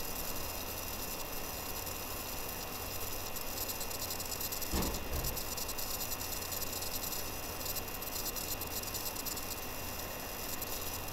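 Steady background hiss with a low hum and a faint high whine, and a single dull thump about halfway through.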